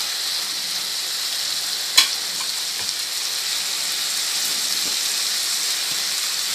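Tomato-onion masala with a little water sizzling and bubbling steadily in a wok as chopped chayote pieces are stirred into it with a spatula. One sharp knock about two seconds in.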